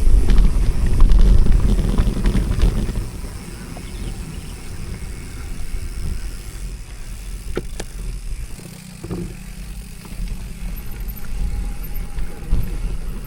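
Mountain bike rolling over a rough trail, with a low rumble of wind and ground noise on the camera microphone that is loudest for the first three seconds, and scattered sharp rattling clicks.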